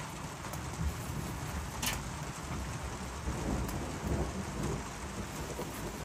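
Steady outdoor noise: a hiss over uneven low rumbling, with one sharp tick about two seconds in.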